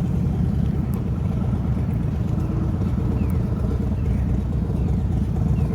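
Steady low rumbling noise throughout, with a few faint, short falling chirps above it.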